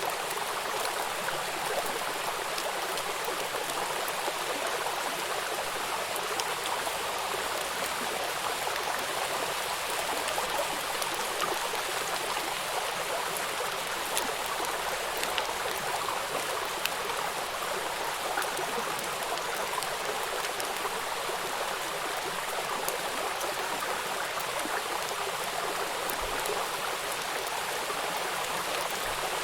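Steady rain falling: an even hiss with scattered faint ticks of single drops.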